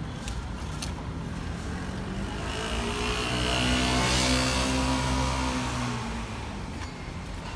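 A motor vehicle passes close by on the street: its engine grows louder to a peak about four seconds in and then fades away, the pitch dropping slightly as it moves off.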